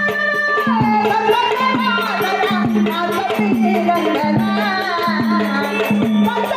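Indian folk devotional music: a sustained melody line that glides between notes, over a steady beat of tabla-like hand-drum strokes.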